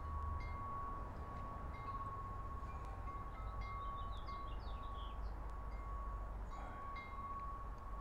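Outdoor birds chirping in short calls repeated about every half second, with a quick run of sliding twittering notes in the middle, over a steady high-pitched ringing tone.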